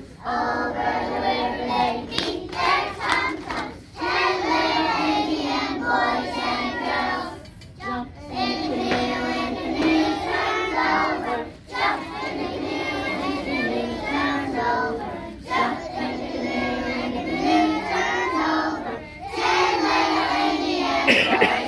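A group of young children singing a song together in unison, in phrases with short pauses between lines.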